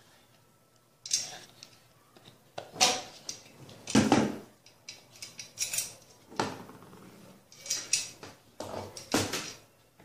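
Ceiling-fan parts being handled and fitted together: a string of irregular knocks, clicks and rustles of plastic housing pieces, starting about a second in.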